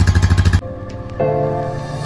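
A 2009 Honda Rancher 420 ATV's single-cylinder engine idling, heard at the exhaust as rapid even pulses, stops abruptly about half a second in. Background music with held notes comes in about a second in.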